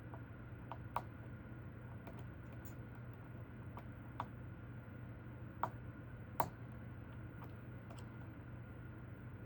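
Small, sharp clicks of lock-picking tools working the pin stack of a nine-pin Goal D9 lock, a handful spaced irregularly over several seconds, over a steady low hum.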